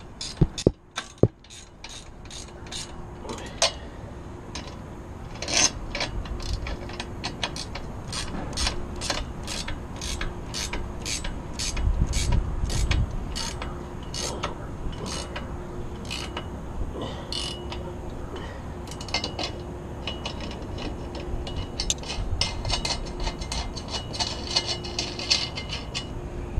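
Ratchet wrench clicking in steady back-and-forth strokes, about two a second, as a nut is run onto the antenna mount's bolt.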